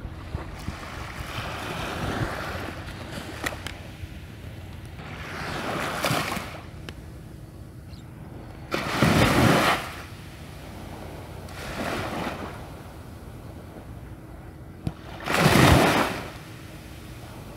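Small waves washing onto the shore every three or four seconds. Each wash swells and fades, and two of them, about halfway and near the end, are clearly louder than the rest.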